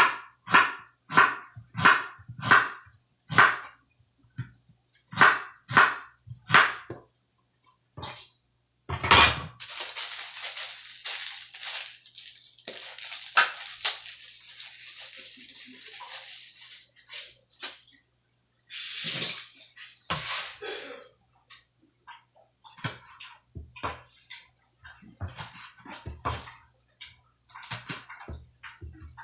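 Water splashing and sloshing as wet hands wash food in a basin: a run of regular strokes about two a second, then a stretch of steady water noise, then scattered splashes.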